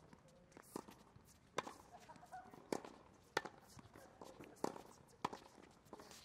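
Tennis ball being struck by racquets and bouncing on a hard court during a rally: about seven sharp pops, one every second or less, with light footsteps on the court between them.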